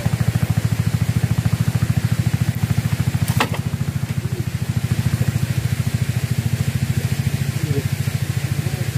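A small engine running steadily close by, a fast, even low thumping that does not change speed. A single brief sharp click sounds about three and a half seconds in.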